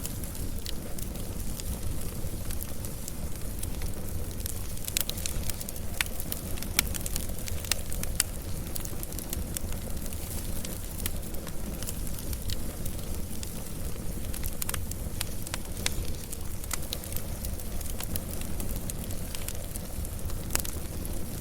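Wood fire burning steadily, with many irregular sharp crackles and pops over a low rumble.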